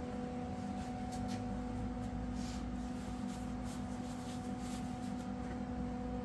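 MIG welder switched on and humming steadily, a mains hum with a few even overtones, with light clicks and rustles as the welding gun and its cable are handled.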